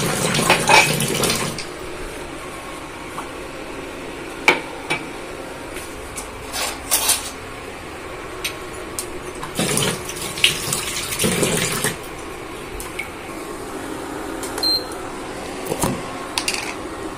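Kitchen tap running into a stainless-steel sink, shut off about a second and a half in. Then scattered clinks and knocks of steel vessels and dishes being handled in the sink.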